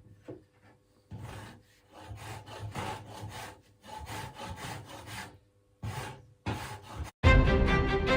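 Wood being worked by hand in quick back-and-forth scraping strokes, about three a second, with two short pauses near the end. Music cuts in abruptly just before the end.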